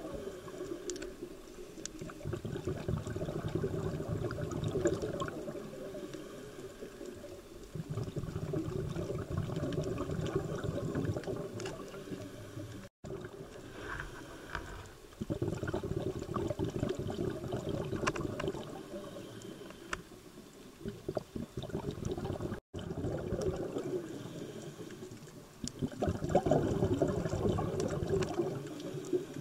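Scuba diver's exhaled air bubbling out of the regulator, heard underwater, in bouts of gurgling a few seconds long with quieter breaks between. The sound cuts out for an instant twice.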